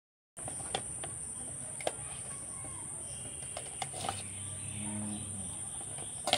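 Scattered light clinks of a steel spoon against a steel bowl as fried khaja are turned in sugar syrup, over a steady high-pitched drone of crickets.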